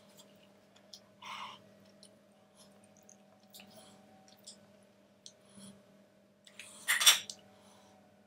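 Close-up handling of food and a disposable plate: scattered small clicks and taps, a short rustle just over a second in, and a louder brief rustling clatter about seven seconds in.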